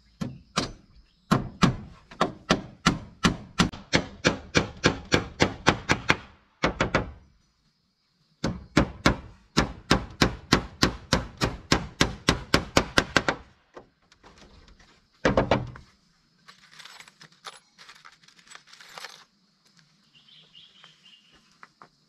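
Hammer nailing wooden boards: two long runs of quick, even blows, about three or four a second, then a few more strikes and softer scraping near the end.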